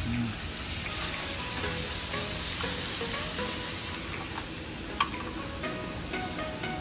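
Thin-sliced Korean barbecue meat sizzling steadily on grill pans over portable gas stoves while tongs turn it. One sharp click about five seconds in.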